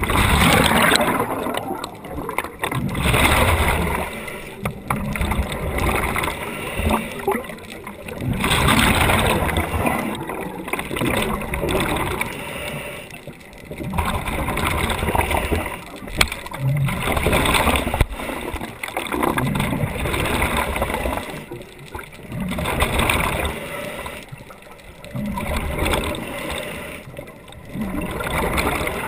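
Scuba diver breathing through a regulator underwater, with gurgling bursts of exhaled bubbles that swell and fade every few seconds.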